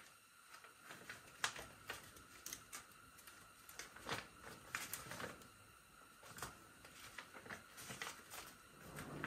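Faint rustling and crinkling of a paper instruction booklet as it is handled and its pages turned, with soft scattered clicks.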